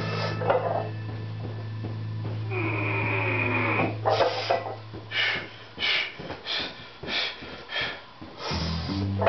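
A weightlifter breathing hard and fast, a run of short, forceful breaths at about two a second in the second half, as he braces under a loaded barbell before a heavy back squat.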